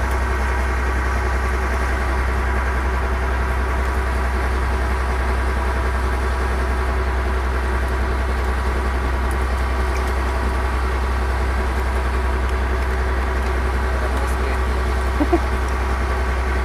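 Fishing boat's engine running steadily at a constant speed, a low drone with a fixed hum. A brief knock about fifteen seconds in.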